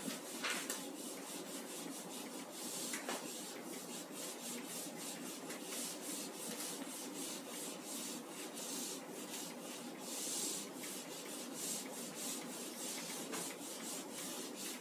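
Eraser wiping marker writing off a whiteboard: a faint, continuous run of short back-and-forth rubbing strokes.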